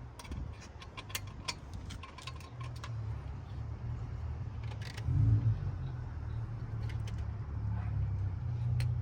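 Light metallic clicks and clinks of hand tools and bolts, clustered in the first few seconds, over a steady low rumble, with a single dull thump about five seconds in.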